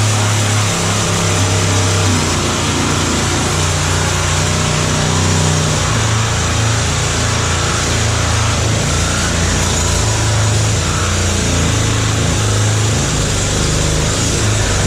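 A motor running steadily and loudly, with a constant low hum under a broad whirring noise.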